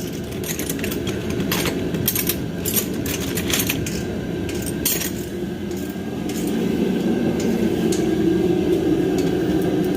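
Metal tools clinking and clattering as someone rummages through them searching for a tool, with scattered sharp clicks mostly in the first half. A steady low hum runs underneath and grows louder about six seconds in.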